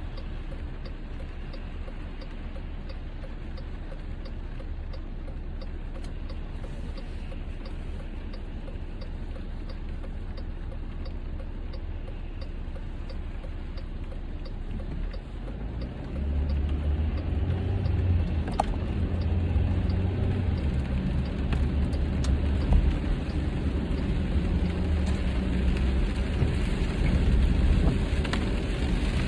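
Car cabin noise at highway speed in rain: a steady rush of tyres and rain on the windshield. About halfway through it gets louder, with a heavier low rumble. A faint, regular ticking runs through the first half.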